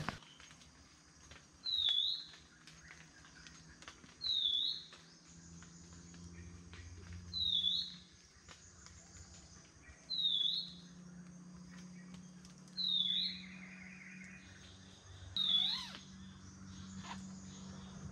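A bird repeating one short, high whistled note that dips and rises, about every two and a half seconds, over a low steady hum in the forest.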